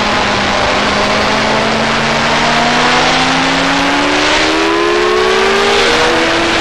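Sports motorcycle engine accelerating hard, its note climbing steadily for several seconds, then dropping sharply with an upshift near the end before pulling again.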